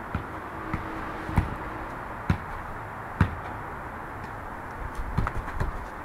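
Dull thuds of a football being juggled, struck by foot, thigh and head, about one touch a second and then a quick run of touches near the end, over a steady background noise.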